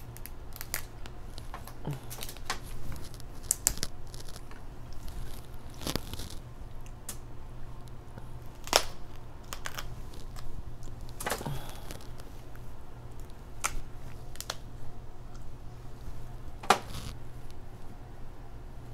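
Cooked king crab leg shells cracking and snapping as they are broken apart by hand and the meat pulled out, in scattered sharp cracks; the loudest comes about halfway through and another near the end.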